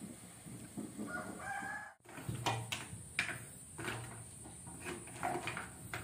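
A chicken calls briefly, about a second in. After that come irregular clattering knocks as boiled mangrove clam shells are stirred with a plastic spatula in a metal pot.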